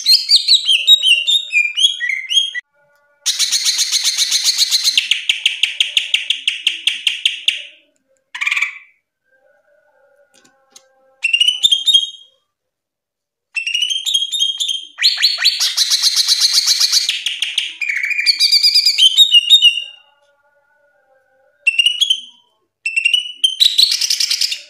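Cucak ijo (green leafbird) singing loudly in bursts: clear whistled notes that slide up and down, mixed with fast chattering trills, with a few short pauses between phrases.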